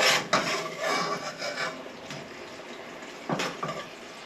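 A big spoon scraping and clattering in a non-stick Dutch oven as chicken is scooped out, in several short bursts over steady sizzling oil.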